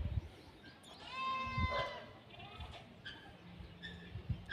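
Goat bleating: one long call about a second in, then a few shorter, fainter calls.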